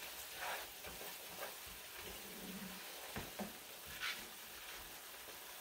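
Spices frying in oil in a skillet, a quiet steady sizzle, with a few short scrapes and taps from stirring with a wooden spatula. The spices are being softened over the heat without letting them burn.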